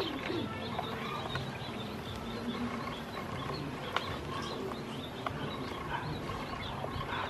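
Ducklings peeping softly as they drink and dabble, with a few sharp clicks as bills hit the bowl.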